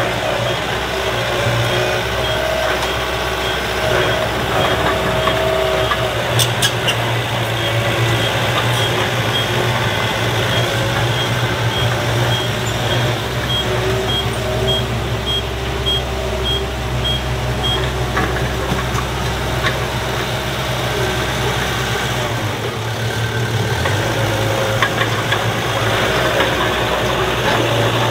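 Diesel engine of a small crawler bulldozer running steadily while it pushes soil, with a dump truck's engine running alongside. A faint high beeping, about two a second, comes in for a few seconds midway.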